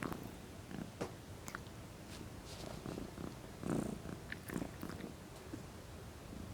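Domestic cat purring steadily close to the microphone, with a few small clicks and rustles on top, the loudest about four seconds in.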